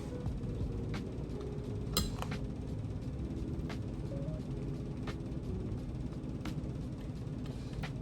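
Quiet background music under a handful of short sharp clicks from eating, the loudest about two seconds in.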